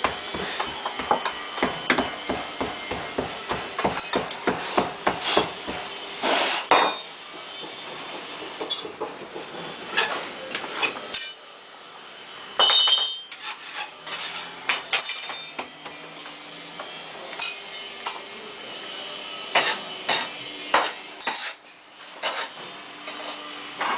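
Hand tool hammering during sand-mould making: a quick, even run of taps for about the first six seconds, then scattered knocks and metallic clinks.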